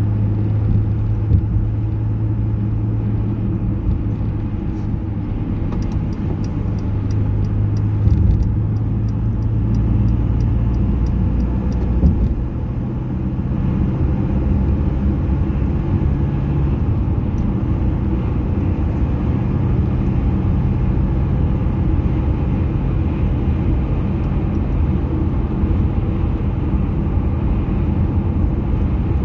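Car driving at motorway speed: a steady low rumble of engine and tyre noise. A run of light, evenly spaced clicks, about three a second, comes in about six seconds in and lasts about six seconds.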